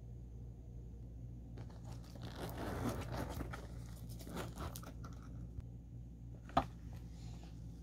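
Metal zipper on a cosmetic pouch being unzipped: a rasping, crinkly run starting about a second and a half in, with rustling as the pouch is handled, then a single sharp click near the end. A low steady hum sits underneath.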